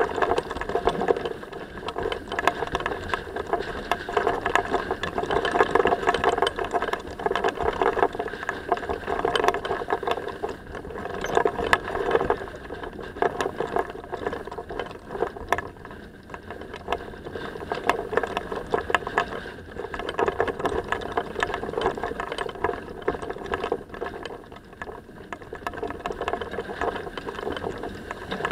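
Sailing yacht heeled and under way: a dense, continuous rattling close to the microphone over water rushing along the hull, swelling and easing every few seconds.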